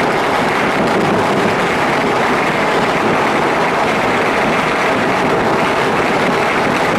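Dense, steady crackle of many distant firecrackers and fireworks going off together across the city, merging into one continuous noise with no single bang standing out.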